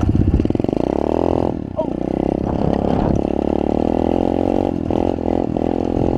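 Dirt bike engine running under throttle while riding through snow. The engine note drops back about a second and a half in, rises again, and cuts out briefly a few times near the end as the throttle comes off and on.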